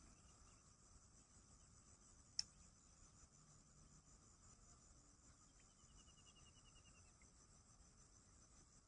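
Faint, steady, high-pitched chirring of insects, with a single sharp click about two and a half seconds in and a short rapid trill of notes about five and a half seconds in.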